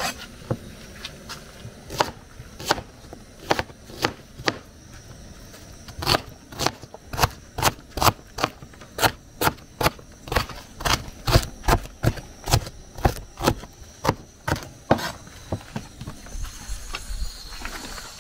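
Sharp knocks of a kitchen utensil, spaced out at first and then a steady run of about three a second from about six seconds in, fading out near the end.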